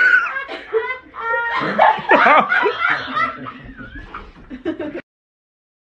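People laughing hard in fits, with short snickering bursts, cutting off suddenly about five seconds in.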